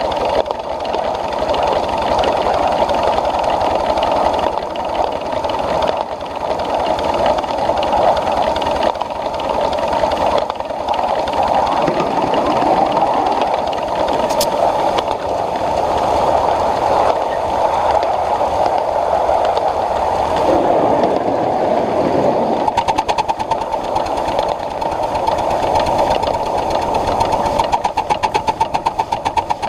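Ride-on live-steam Pacific (4-6-2) locomotive running with a passenger train, a steady rushing of exhaust and running gear, with a few sharp clicks. Over the last few seconds the sound turns into a rapid, even pulsing beat.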